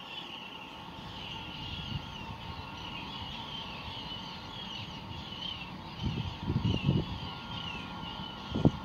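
Night harbour ambience: a steady machinery hum with two held tones from the berthed cruise ship Silver Dawn, under high wavering chirps. Low rumbling bumps, wind or handling on the microphone, come about six seconds in and again near the end.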